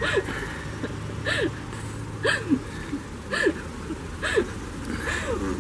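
Stifled, breathy laughter: short squeaky giggles that rise and fall in pitch, about one a second.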